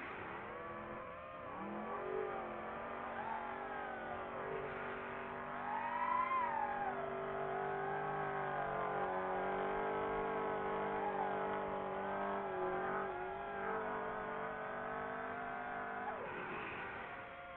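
Off-road race truck engine running hard at high revs, its pitch mostly holding steady with several brief rises and falls as the throttle changes.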